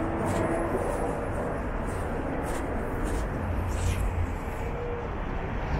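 City street ambience: a steady low rumble of traffic with a general urban hum.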